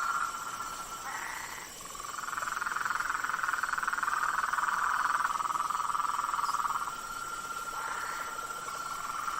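Marsh frog chorus: many frogs calling in a dense, steady trill, with a short louder call breaking in about a second in and again near the end.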